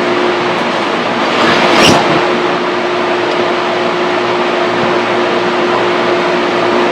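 A fan running with a steady whir and a constant hum, swelling briefly about two seconds in.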